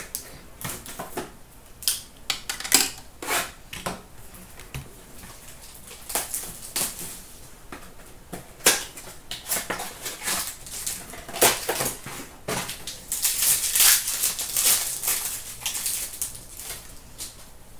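Shrink wrap, cardboard box and foil card packs crackling and rustling as they are handled and torn open: a run of sharp crackles and clicks, densest toward the end.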